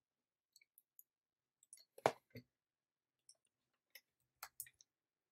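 Faint, irregular clicks and taps of a computer keyboard and mouse, about a dozen light strokes with the loudest about two seconds in.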